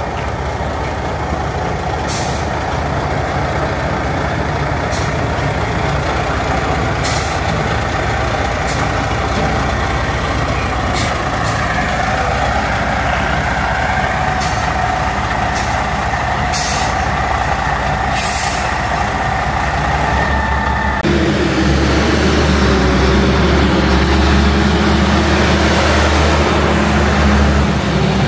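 Mack Superliner semi truck's diesel engine running on the road: a steady drone with sharp clicks every second or two. About three-quarters of the way through, the engine note changes and grows louder and deeper.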